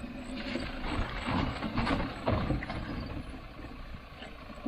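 An old jeep's engine working its way up a rough, rocky off-road track, an uneven rumble with scattered knocks.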